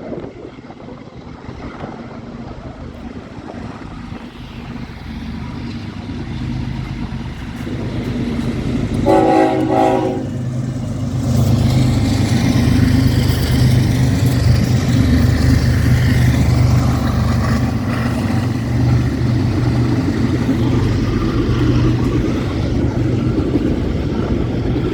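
A diesel train approaching and passing, growing steadily louder. It gives one short horn blast about nine seconds in. The locomotive's engine and the rolling cars then run loud and steady.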